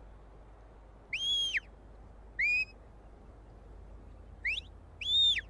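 A sheepdog handler's whistle commands to a working collie: four separate clear notes, a long rise-and-fall note about a second in, a short rising one, a quick rising chirp and a final rise-and-fall note near the end.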